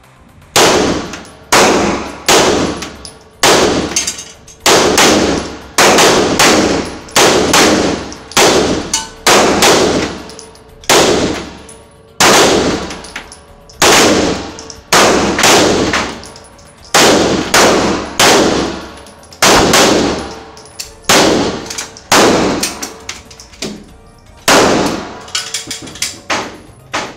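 Handgun shots fired inside an indoor shooting range, a steady string of about one to two shots a second, each followed by a ringing echo off the walls.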